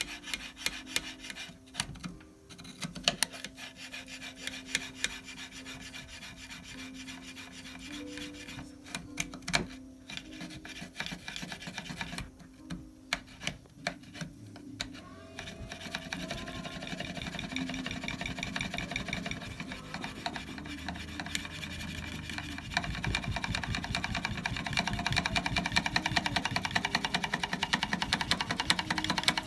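Locking lugs of a trued Remington Model 700 action being lapped in: the lapping tool is worked back and forth in the steel receiver with abrasive compound, making a gritty metal-on-metal rasping with sharp clicks. About halfway through, the strokes turn into a faster, even scrubbing rhythm that grows louder toward the end.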